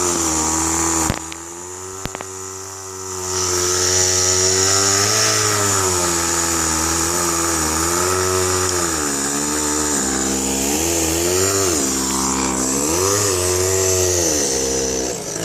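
An engine running and revving unevenly, its pitch rising and falling over and over. It drops to a quieter, lower note about a second in and picks up again about three seconds in.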